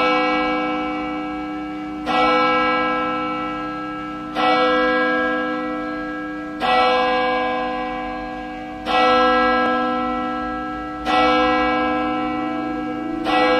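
A church bell tolling: seven evenly spaced strokes about two seconds apart, each ringing on and slowly fading until the next.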